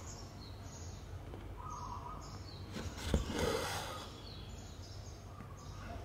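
Quiet background with a few short, falling bird chirps, and a sharp tap about three seconds in followed by a brief swish, the sound of a needle and thread being pulled through cross-stitch fabric.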